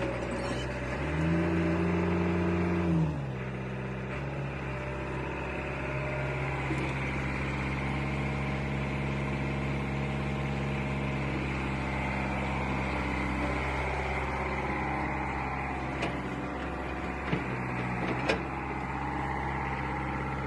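Caterpillar E70B excavator's diesel engine running, revving up about a second in and dropping back to a steady run about two seconds later. A few short knocks come near the end.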